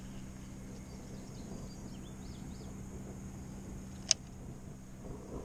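Outdoor ambience: a steady low hum with faint, short bird chirps, and a single sharp click about four seconds in.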